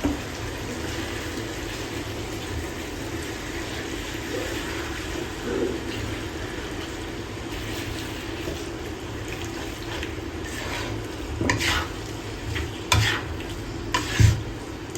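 Chicken curry sizzling steadily in a pot on low heat as freshly added yogurt is stirred in. From about ten seconds in, the spoon scrapes and knocks against the pot several times.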